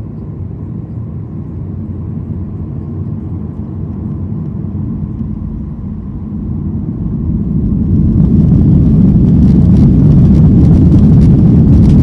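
Boeing 737-800's CFM56-7B engines heard from the cabin: a steady low rumble that starts rising about six seconds in as the engines spool up to takeoff thrust. About eight seconds in it becomes much louder, with a rushing hiss and light rattling from the cabin.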